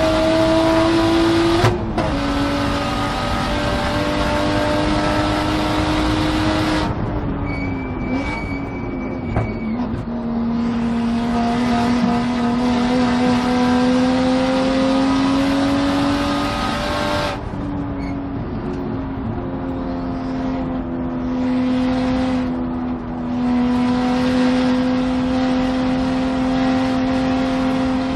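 Single-turbo BMW race car engine heard onboard at speed on track. The engine note steps about two seconds in, drops and wavers as the driver comes off the throttle around seven seconds in, then pulls again with a slowly rising pitch through the rest of the lap section.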